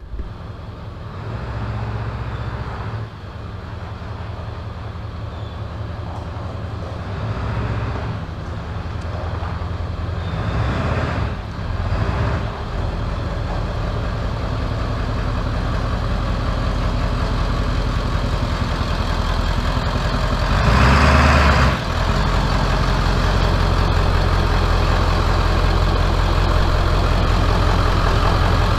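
1997 Ford F-350's 7.3 L Powerstroke turbo-diesel V8 running as the truck is backed slowly into a shop bay, with a brief louder surge about two-thirds of the way in, then settling to a steady idle.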